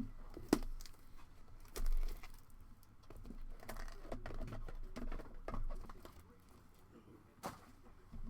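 Handling and unwrapping of a trading-card box and its packaging: soft rustling with a few sharp clicks and taps, one about half a second in, one near two seconds and one near the end.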